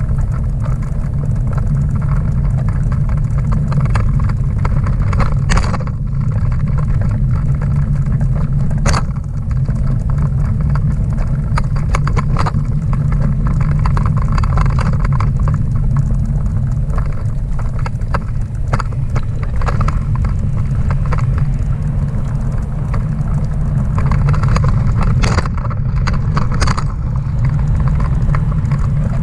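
Schwinn pet bike trailer rolling along a paved street: a steady low rumble from its wheels and frame, with several sharp knocks as it jolts over bumps.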